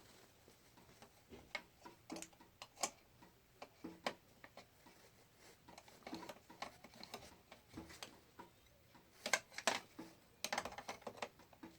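Faint, scattered clicks and taps, with a quicker cluster near the end, as snap-on legs are fitted to the housing of a Lasko 20-inch box fan.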